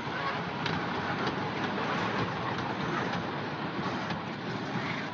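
Toy train running: a steady rumble and rattle with scattered clicks.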